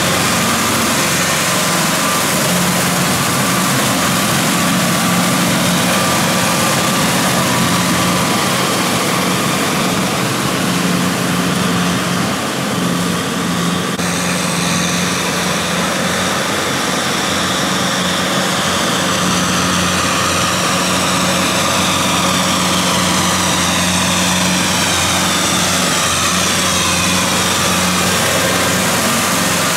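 Kubota tractor's diesel engine running steadily under load as it pulls a rotary tiller through flooded paddy mud. The sound changes abruptly about halfway through.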